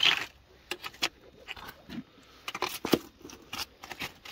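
Loose shore rocks clattering and knocking against each other as they are shifted and turned over, with a short scraping rasp at the start and irregular sharp clacks after it, the loudest about three seconds in.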